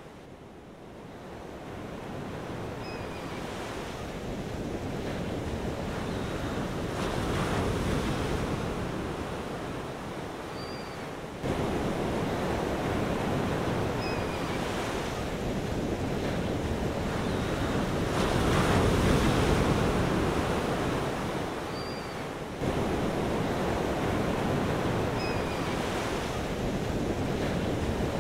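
Ocean surf: waves washing in and ebbing in slow swells, with a few faint short chirps. The same stretch of about eleven seconds repeats, with abrupt jumps in level about eleven and twenty-two seconds in.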